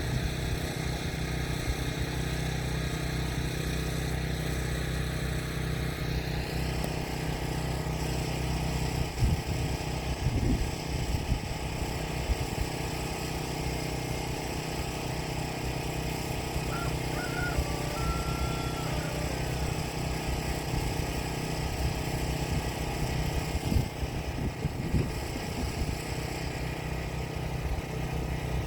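A steady low engine-like drone, with a few brief knocks.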